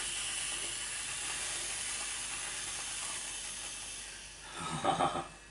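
Aerosol can of whipped cream spraying: a steady hiss that tails off about four seconds in.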